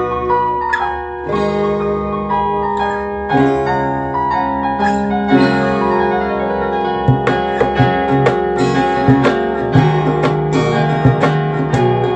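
Instrumental background music with piano.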